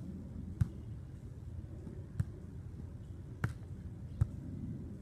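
A volleyball being struck four times during a beach volleyball rally: sharp single slaps about one to one and a half seconds apart, over a steady low background rumble.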